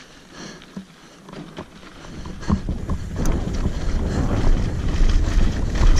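Wind rumbling on the camera microphone as the mountain bike picks up speed downhill, growing loud from about two seconds in, over scattered sharp clicks and rattles of the bike on the rough dirt trail.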